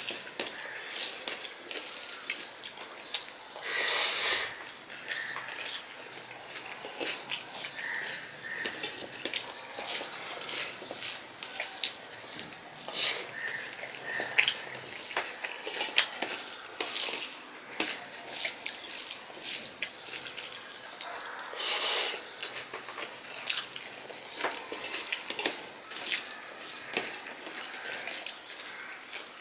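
Close-up eating sounds: fingers squishing and kneading rice with chilli bharta on a steel plate, and wet mouth smacks and chewing, a steady run of small wet clicks. Two louder breathy rushes stand out, about four seconds in and about twenty-two seconds in.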